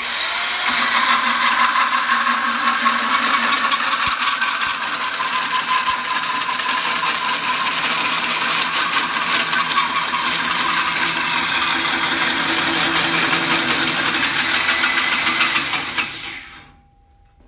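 Motor-driven 4-inch bimetal hole saw on a tube notcher cutting into a lubricated 4-inch mild steel tube, a loud, steady grinding of saw teeth on steel over the hum of the drive. It starts abruptly and stops about sixteen seconds in, fading as the saw spins down with the cut only partly through.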